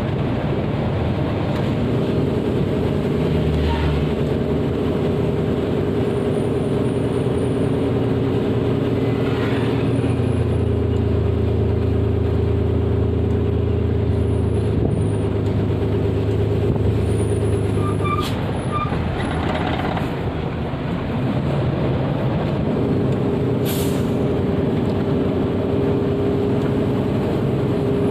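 Motor vehicle engine running steadily with road noise, a low, even hum.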